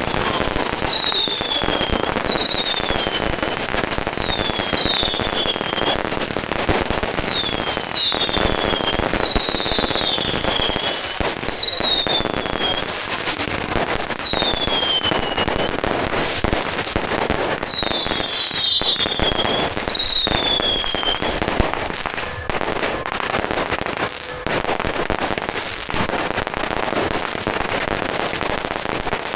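Fireworks and firecrackers going off continuously as a dense crackle, with repeated short whistles falling in pitch over roughly the first two-thirds.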